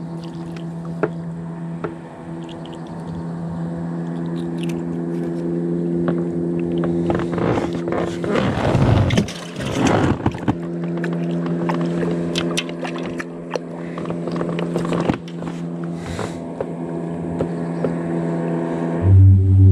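A steady engine drone at one constant pitch, slowly growing louder, with a rush of rough noise from about 7 to 10 seconds in. Music cuts in abruptly just before the end.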